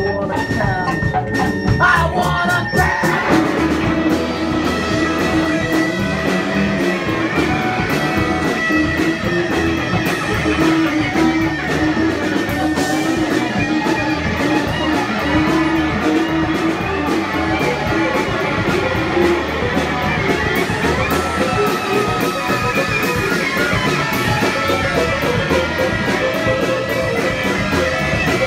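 Live punk band playing a song with fiddle, electric guitar and drum kit, recorded loud from the audience.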